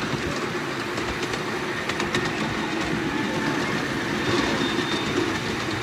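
Open wagons of a small park train rolling along the track, a steady rattling rumble with scattered clicks from the wheels and cars.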